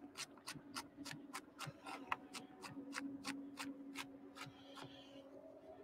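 A knife chopping rapidly on a cutting board, about five even strokes a second, stopping shortly before the end.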